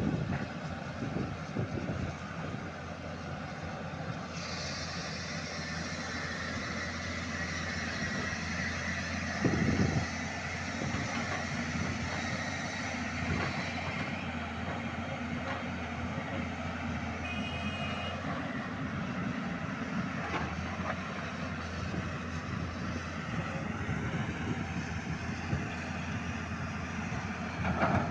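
Hyundai R210-7 crawler excavator's diesel engine running steadily, with a high hiss for several seconds and one loud knock about nine and a half seconds in.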